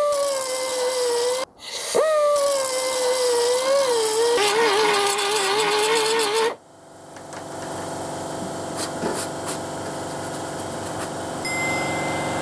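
A handheld electric power tool, such as a grinder, is switched on twice. Its steady whine sags in pitch and wavers once it bears on the metal. After it stops, a quieter, steady machine noise carries on.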